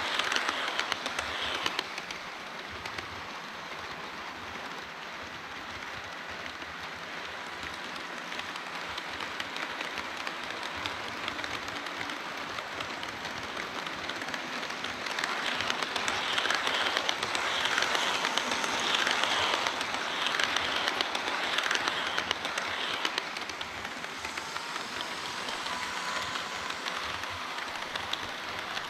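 HO-scale model train running on the layout track: a steady fine rattling clatter of small metal wheels over rails and rail joints. It grows louder for several seconds from about halfway through, then eases off.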